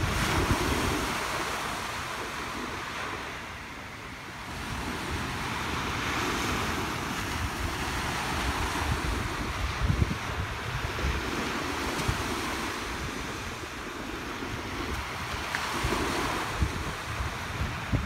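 Small waves breaking and washing up a sandy beach, the surf swelling and easing every few seconds, with gusts of wind on the microphone.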